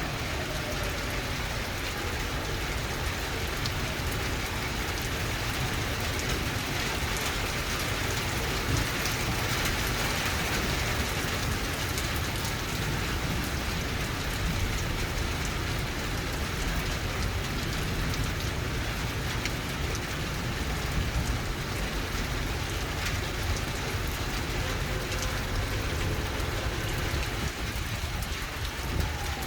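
Steady rain falling, with sharp taps of single drops landing close by.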